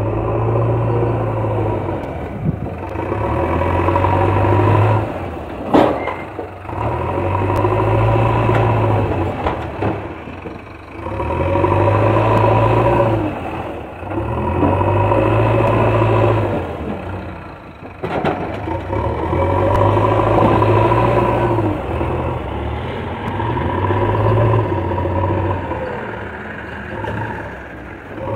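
JCB 3DX backhoe loader's diesel engine repeatedly revving up under load and easing back, in swells every few seconds, as the backhoe arm and bucket work. A single sharp knock about six seconds in.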